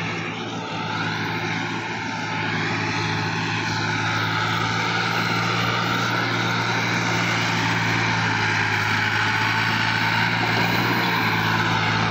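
Diesel tractor engines running steadily under load while pulling loaded trolleys. The drone grows louder over the first few seconds as the lead tractor approaches, then holds steady.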